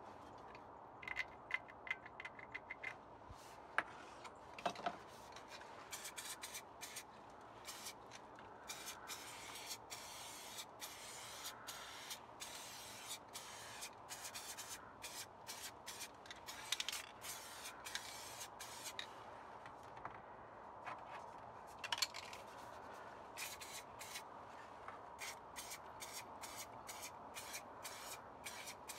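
Aerosol spray paint cans hissing in many short bursts, with longer sprays through the middle. Near the start, a quick run of clicks like a spray can's mixing ball rattling as the can is shaken.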